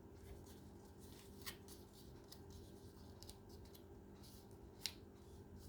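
Faint paper handling: a sheet being folded and creased, with a few sharp crackles, the loudest near the end, over a steady low hum.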